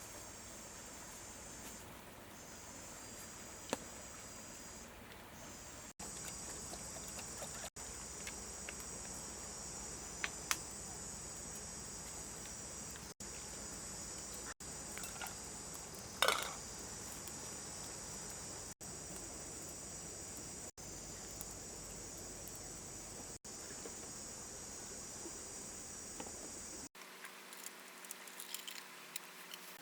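A steady, high-pitched chorus of insects chirring in the forest, with a few sharp knocks or snaps, the loudest about 16 seconds in. Near the end the insect chorus stops and scattered light ticking follows.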